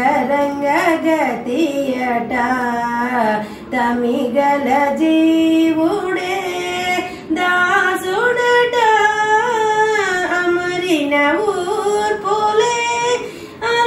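A woman singing a song solo, without accompaniment. Her voice holds long notes that glide up and down, with brief pauses for breath between phrases.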